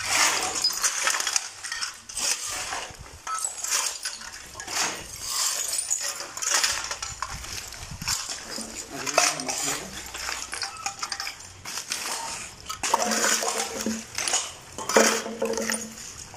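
Shovels scraping on a concrete floor and clinking against cans and glass bottles as soil and trash are turned together, in irregular clattering strokes.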